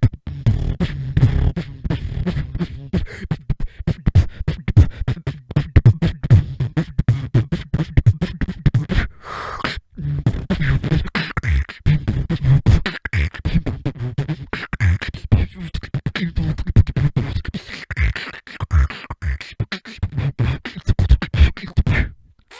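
Solo freestyle beatboxing: a fast, unbroken stream of sharp mouth-made percussion over a heavy low bass. It breaks briefly with a short held sound about halfway through, then goes on until it stops just before the end.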